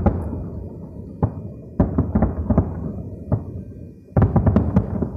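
Distant fireworks shells bursting: a string of booms, each trailing off in a low rumble, with a quick cluster at the start, several more through the middle, and a dense run of bangs about four seconds in.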